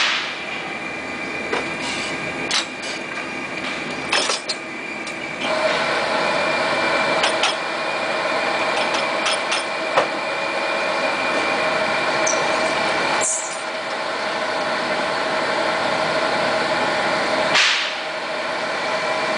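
Electric motor of a mop-binding machine running steadily with a constant whine, with occasional knocks and clatter of wooden handles and tools. The whine grows louder about five seconds in.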